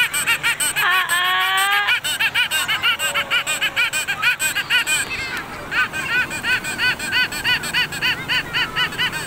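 A young child laughing hard in a fast run of short, high-pitched bursts, pausing briefly about five seconds in.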